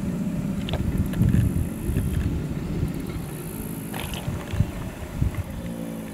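Chorus of American alligators bellowing, their mating call: a deep, low rumble from many animals at once, turning into a more pitched growl near the end.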